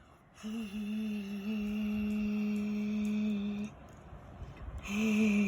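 A woman's voice imitating a whooshing breeze with a long, steady, hummed 'whooo' held for about three seconds, then a second shorter one near the end.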